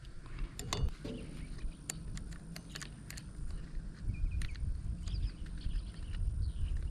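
Scattered light clicks and taps of a saw chain and bar being handled and fitted onto a chainsaw, over a low rumble.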